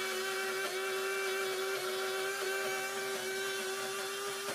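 Electric mixer grinder running at full speed with a steady, unchanging whine, grinding leftover rajma curry to a coarse paste in its steel jar.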